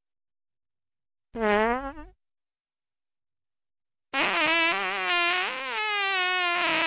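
Comic fart sound effects: a short one rising in pitch about a second and a half in, then a long wobbling one starting about four seconds in, with dead silence between them.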